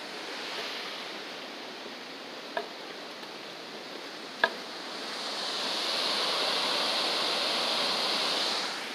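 River water rushing over rocks in a rapid: a steady rushing that swells louder over the second half and drops back near the end. Two sharp knocks about two seconds apart stand out over it.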